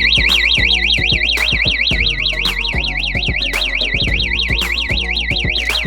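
APO PS-303 single-piezo alarm siren sounding a fast warble, its high pitch sweeping up and down about four times a second, over background music with a steady beat.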